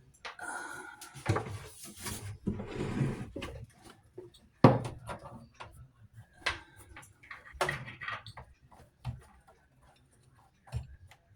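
Metal plumbing fittings and water shut-off valves being handled and fitted: irregular clinks and knocks with some rustling, the sharpest knock a little before halfway.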